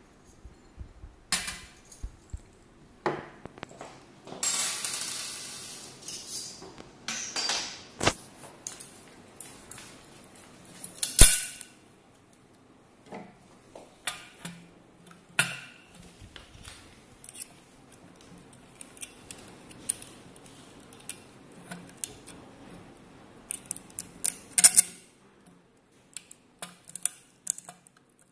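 Handling noise of stainless-steel and glass parts being fitted together: scattered clinks, taps and knocks, with a few seconds of steady scraping about five seconds in and one loud knock about eleven seconds in.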